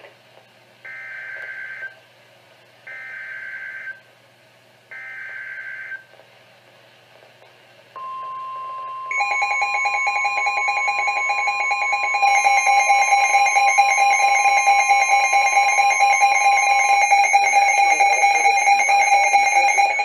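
NOAA Weather Radio emergency alert: three short warbling SAME data bursts, then the steady 1050 Hz warning tone for about nine seconds. Partway through the tone, weather alert radios set off their own fast-pulsing alarm beeps, one about 9 s in and a second, higher-pitched one joining a few seconds later, signalling a Severe Thunderstorm Warning.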